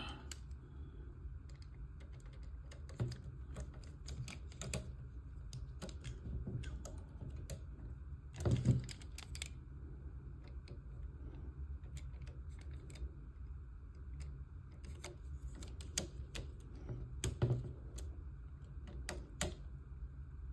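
Screws being tightened one after another into a model kit's frame pieces: irregular small clicks and ticks of the parts and screws, with a louder knock about eight seconds in and another near the end.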